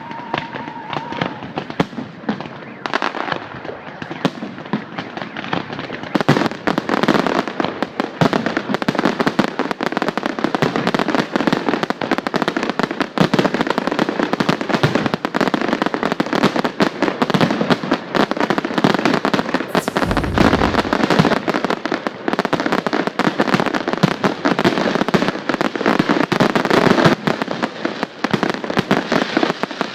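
Fireworks display: a dense, continuous barrage of bangs and crackles, growing denser and louder about six seconds in.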